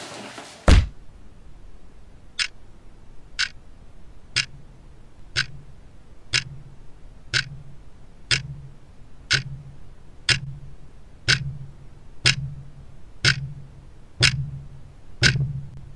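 A heavy thud as a body hits the floor, then a clock ticking once a second, each tick with a low thump under it, growing steadily louder.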